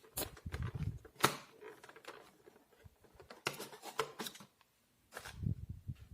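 Handling of a boxed paint set in its plastic trays: irregular clicks and knocks, with two dull thumps, one about half a second in and one near the end.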